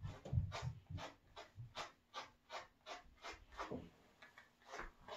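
Slicker brush raking through a Miniature Schnauzer's wiry leg furnishings: a quick, even run of short brushing strokes, about three a second, with a few soft low thumps in the first second.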